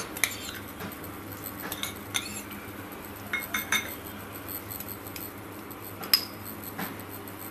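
Cumin seeds sizzling faintly in hot mustard oil, under a few light clinks of small glass bowls, the sharpest about six seconds in.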